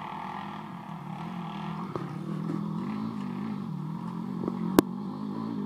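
Pit bike engine running, its pitch rising and falling a little as the bike is ridden, with one sharp click near the end.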